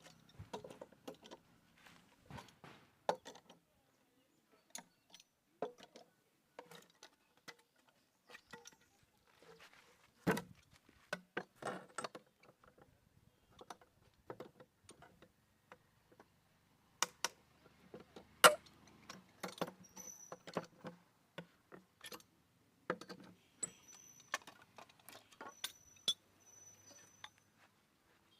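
Irregular light clicks and knocks of hard objects being handled. A sharper knock comes about ten seconds in, and the loudest one near eighteen seconds.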